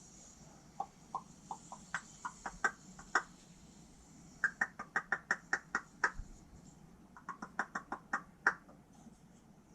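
A pet raven making short, hollow knocking clicks in three runs: a slower, uneven series at first, then a quick run of about six knocks a second, then another run near the end.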